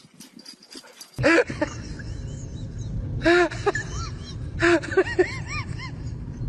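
A dog barking in short loud bursts, each followed by a run of quick, high rise-and-fall yips. It starts about a second in after a brief near-quiet gap.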